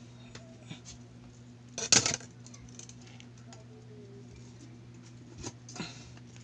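A glass enclosure and small containers being handled and set down on a table: a short clatter of knocks about two seconds in, then a couple of light knocks, over a steady low hum.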